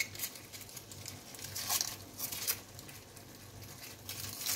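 Gold foil wrapper of a Maggi stock cube crinkling as it is unwrapped by hand, in a few short, scattered rustles.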